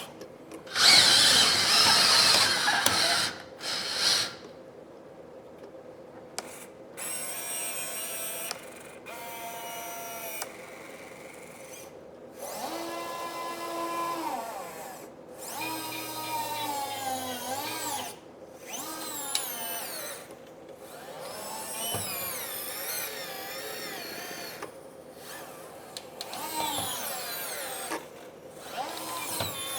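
Small electric motors of a radio-controlled model bulldozer whining in repeated start-stop runs, the pitch rising, falling and wavering with the load, as the Firgelli linear actuators move the blade. About a second in comes a louder, rougher noisy burst lasting about two seconds.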